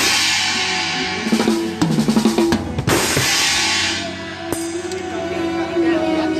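Band music with a drum kit: bass drum and snare under a sustained melody line, with cymbal crashes at the start, about three seconds in and again about a second later.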